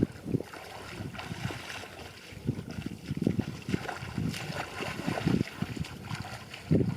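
Water sloshing and splashing in uneven bursts.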